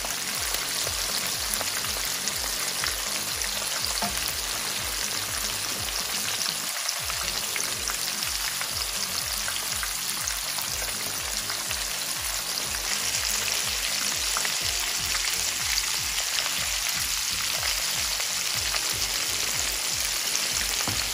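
Batter-coated chicken wings deep-frying in hot oil: a steady, dense sizzle and crackle of bubbling oil.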